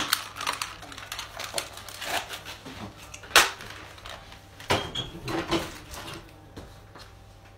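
Scattered knocks and clatter of objects being handled and moved about in a small room, with one louder knock about three and a half seconds in and a quick run of knocks around five seconds; it tails off near the end.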